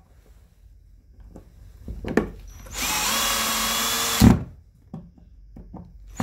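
Metabo cordless drill driving a switch's mounting screw into a plastic electrical box. After a few light clicks, the drill winds up quickly, runs steadily for about a second and a half and ends with a thump. It starts again right at the end.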